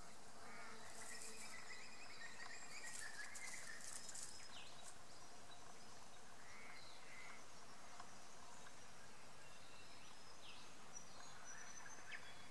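Faint bush ambience: scattered bird chirps and short whistled calls over a steady background hiss.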